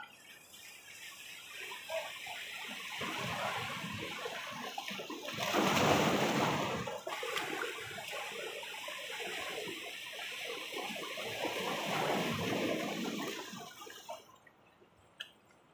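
Sea waves washing in over the rocks of a jetty: a rushing surge that builds, is loudest about six seconds in, and dies away near the end.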